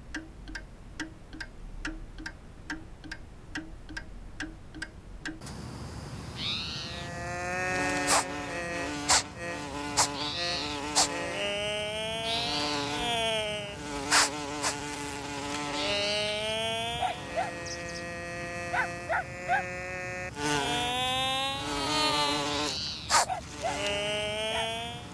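Cartoon bee's buzzing flight, a pitched buzz that wobbles and glides up and down, starting about five seconds in, with sharp clicks and short chirps mixed in. Before it, faint regular ticking.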